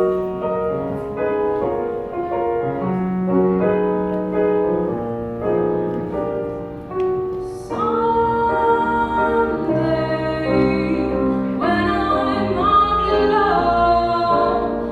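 Outro music with singing voices over keyboard, growing fuller about eight seconds in.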